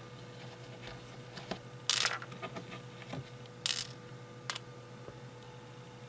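Loose Lego pieces clicking and clattering as they are pushed about and dropped on a plastic baseplate, in scattered small clicks with two brief louder rattles, about two seconds in and again near four seconds.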